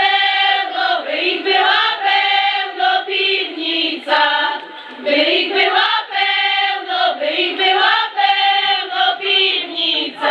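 A group of women singing a Żywiec highland folk song together, unaccompanied, in phrases with short breaks for breath between them.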